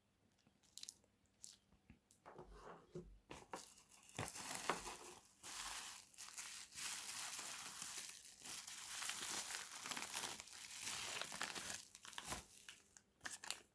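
Packaging crinkling and tearing as a part is unwrapped by hand: a few sharp clicks and rustles at first, then several seconds of continuous crackling, tapering off near the end.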